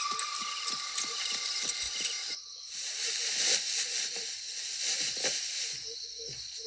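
A steam locomotive's whistle trails off. About two and a half seconds in, there is a hiss of escaping steam that lasts about three seconds. Faint clicks can be heard throughout.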